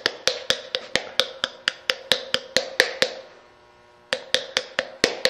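A paddle patting the bottom of a wet clay cup in sharp, even taps about four a second. The taps stop for about a second past the middle, then start again. The paddling firms the join of the scored and slipped slab bottom to the cylinder wall.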